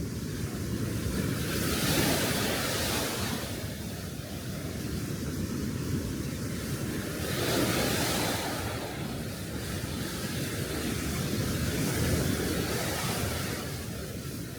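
Sea waves washing onto a beach, the surf swelling and easing three times, about every five seconds.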